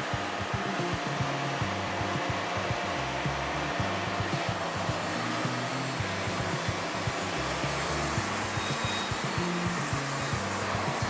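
Steady whooshing machine noise, like a motor running continuously, with background music and its stepping bass line underneath.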